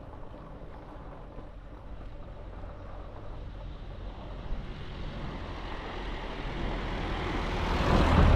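Motor vehicle noise, a low rumble with a hiss above it, growing steadily louder and loudest near the end.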